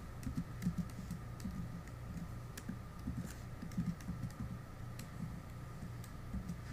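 Typing on a computer keyboard: a run of irregular key taps over a steady low hum.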